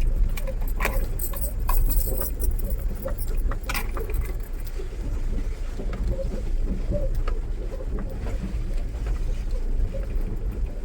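Mahindra Bolero Pickup driving over rough ground: a steady low engine and road rumble, with loose rattles and knocks from the body and load bed, most of them in the first few seconds.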